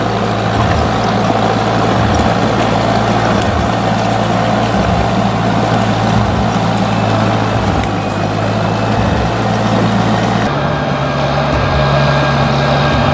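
Diesel engine of a logging skidder running steadily under load as it drags logs. About ten seconds in, the engine note changes abruptly.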